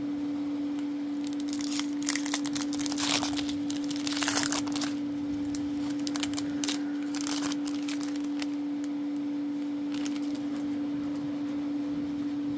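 A plastic-foil Magic: The Gathering booster pack wrapper crinkling and tearing as the pack is opened, most busily from about two to five seconds in, then lighter rustling as the cards are pulled out. A steady hum runs underneath.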